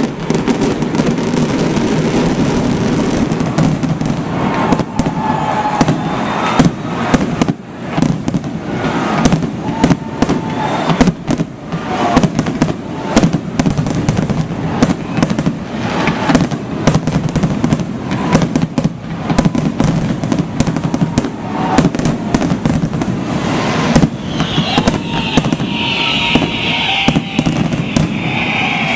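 Stadium fireworks display: aerial shells bursting in rapid, irregular succession, many sharp bangs over a dense continuous rumble.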